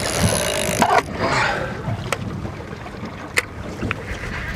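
A fishing reel's drag ratchet running for about a second as a fish takes line. Then water and wind around a small boat, with two sharp clicks.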